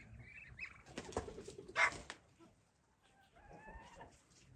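Chickens clucking and calling quietly, with one louder call a little under two seconds in.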